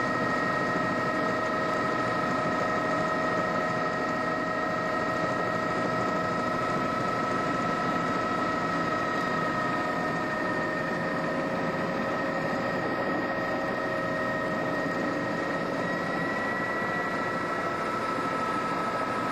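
Helicopter running steadily as it comes in to land, a constant rush with a steady high whine over it; the sound eases slightly about halfway through.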